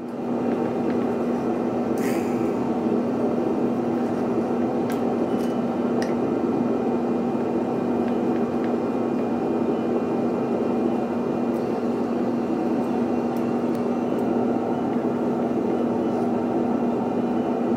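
A steady low mechanical hum, with a few faint clicks of a knife and tongs on a wooden cutting board as grilled beef tenderloin is sliced.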